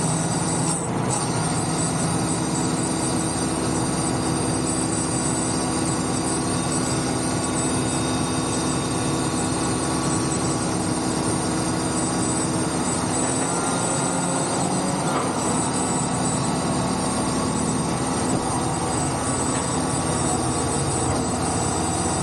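Tractor engine running steadily while hauling a loaded trailer, with a constant drone and a faint high whine over it. Its note shifts slightly about two-thirds of the way through.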